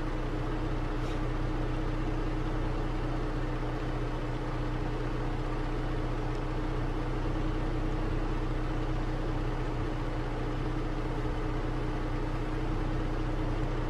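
Steady hum of a vehicle engine idling, an even drone with a constant low pitch.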